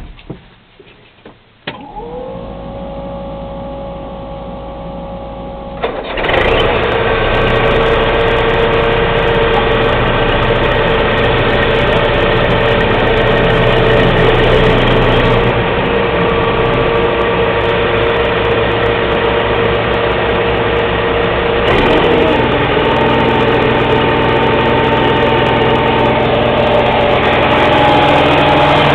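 A self-propelled swather's diesel engine being started: a steady tone sounds for a few seconds, then the engine catches about six seconds in and runs steadily. Its note shifts a little around three-quarters of the way through.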